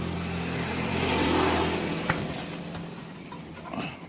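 A motor vehicle passing by, its low engine drone and road noise fading away over a few seconds. A single sharp click about two seconds in.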